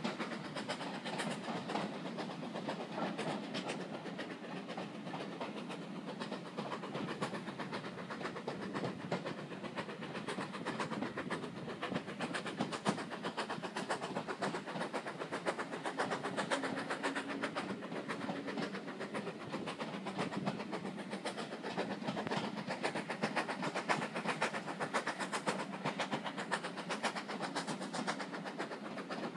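Steam-hauled passenger train running, heard from an open carriage window: a steady rumble of the coaches' wheels on the track with a fast, continuous clatter.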